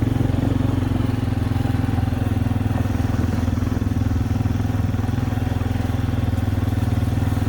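Quad (ATV) engine running at a steady speed, holding an even pitch throughout.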